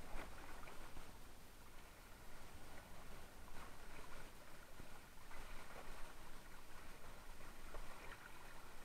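Water rushing and splashing off the nose of a Mistral Superlight windsurf board under sail, in irregular gushes over a steady wash.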